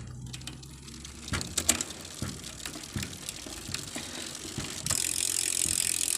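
Ragusa R100 bicycle rear hub freewheel ratcheting: separate pawl clicks at first, then from about five seconds in a fast, continuous high-pitched buzz as the wheel freewheels.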